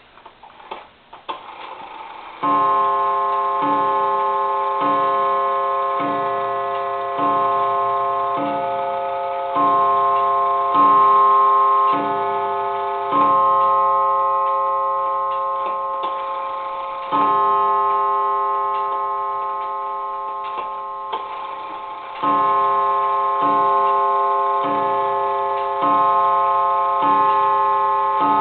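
Gilbert Pandia parlor clock striking on its gong with the re-leathered hammer. After a couple of seconds of movement ticking, the strokes come about once every 1.2 seconds, each ringing on with a rich sustained tone into the next. The strike train is running evenly after the repair of its strike-side wheel.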